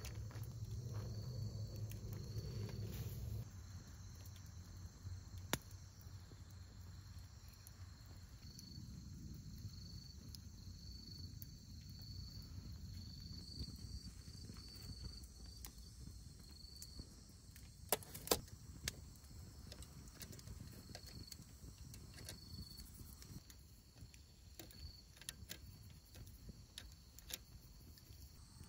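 Faint insect chirping at a steady high pitch, with scattered small clicks and a few sharper clicks about 18 seconds in. A low rumble cuts off about three and a half seconds in.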